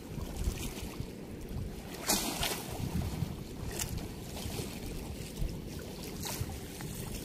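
Wind rumbling on the microphone over running river water, with a few short splashes as a cast net is hauled in by its rope and pulled through the water at the bank.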